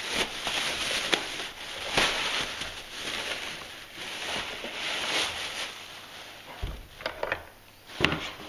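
Thin plastic bag crinkling and rustling as it is pulled off a benchtop belt sander. It is followed near the end by a low thud and a few sharp knocks as the machine is handled.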